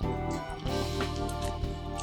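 Soft instrumental background music with a steady beat.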